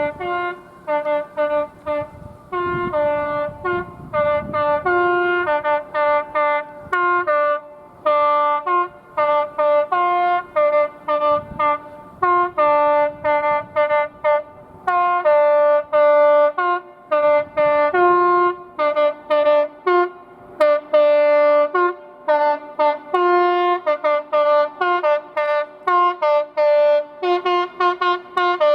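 Multi-note train horn sounded in a long rapid string of short blasts, about two a second, with the chord shifting between blasts as different notes come in and drop out. A low rumble sits under it at the start.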